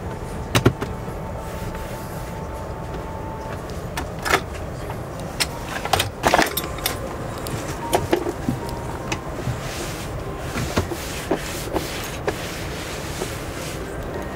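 Fold-out tray table of an airliner business-class seat being handled and moved, with scattered knocks and clicks, over the steady low hum of the aircraft cabin.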